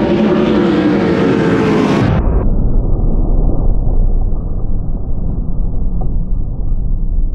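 A pack of 410 sprint cars' methanol V8 engines running hard through a dirt-track turn, loud and steady. About two seconds in, the sound abruptly turns dull and muffled, losing all its highs, as dirt spray from the cars covers the camera and its microphone.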